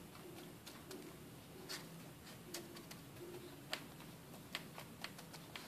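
Faint, scattered light clicks and scratches as fingers work coarse, gritty bonsai substrate, pressing a plastic bottle-neck fertilizer basket down into the soil.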